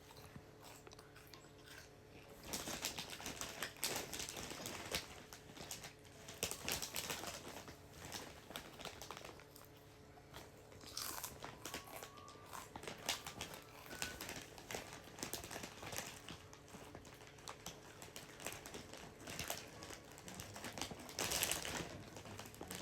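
Faint, irregular crinkling and rustling with scattered clicks, louder in a few short clusters.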